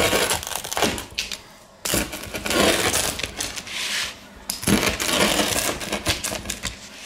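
Wheel pizza cutter rolling through a crispy, freshly stone-baked pizza crust, crackling and crunching in three cutting strokes with short pauses between them.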